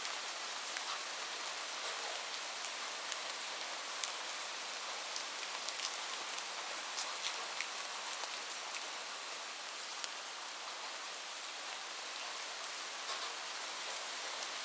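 Steady rain falling on a roof: an even hiss with many scattered, sharp drop ticks.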